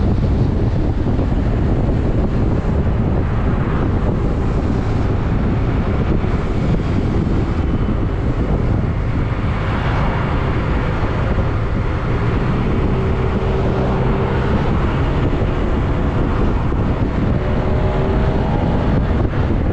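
Yamaha MT-09 motorcycle on the move, wind rushing over the microphone. Beneath it the inline three-cylinder engine's note shifts up and down faintly in the second half.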